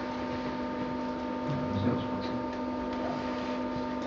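Steady electrical hum made of several fixed tones held at an even level, heard as room tone, with a faint soft low sound about two seconds in.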